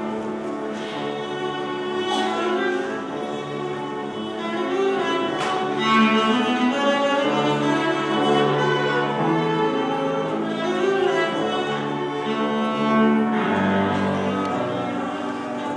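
Cello played with the bow: a slow melody of held notes, dropping to a low note near the end.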